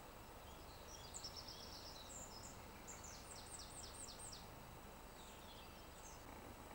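A small songbird singing faintly: one phrase of high, quick notes with a run of about five fast downward-sweeping notes in the middle, over a steady low background rumble.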